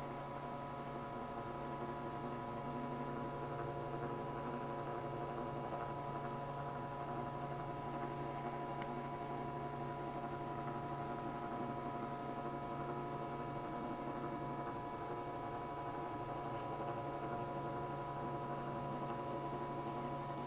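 Steady electrical hum made of several held tones over a faint hiss.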